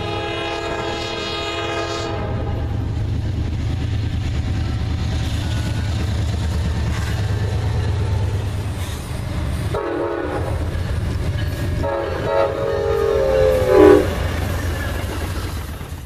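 Freight train passing with a steady low rumble and wheel noise, its diesel locomotive's multi-tone horn sounding for about two seconds at the start, then briefly about ten seconds in and again for about two seconds near the end, the last blast the loudest.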